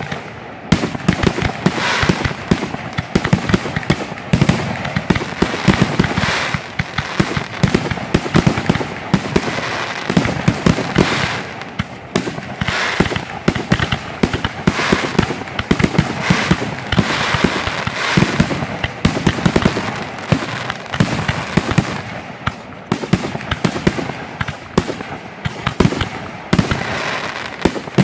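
Aerial fireworks finale barrage: many shells bursting in rapid succession, the bangs overlapping with no let-up.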